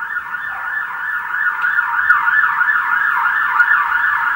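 A siren-like wailing tone in repeated quick sweeps, about three a second, that starts abruptly and keeps on steadily.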